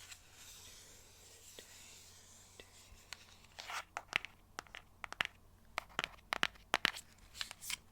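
Fingernails tapping and scratching on a box in close-up: a faint hiss at first, then from about three and a half seconds in a run of sharp, irregular taps mixed with short scratchy strokes.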